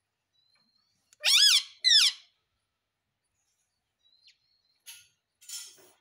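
Indian ringneck parakeet giving two loud, shrill calls about a second in, the first rising and falling and the second sliding down, then two softer, harsher chirps near the end.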